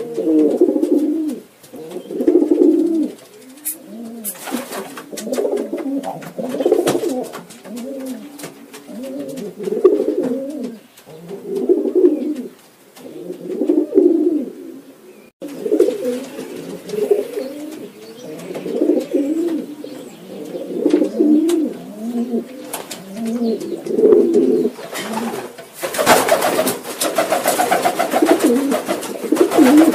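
Several domestic pigeons cooing over and over, their low rolling coos overlapping. Near the end a pigeon beats its wings for a few seconds, a loud fluttering over the cooing.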